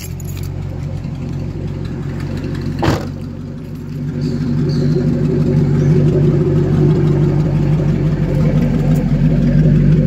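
Ford Mustang engine running, with a single thump about three seconds in; about four seconds in the revs come up and are held steady and louder.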